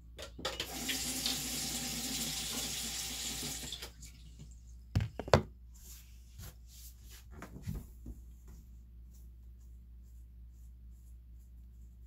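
Tap running into a sink for about three and a half seconds, then shut off. About a second later come two or three sharp knocks, the loudest sounds here, followed by a few light clicks and taps.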